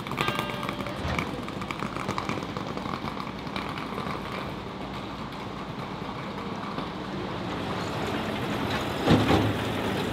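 City street traffic noise, steady throughout. About nine seconds in, a heavy truck goes past and briefly becomes the loudest sound.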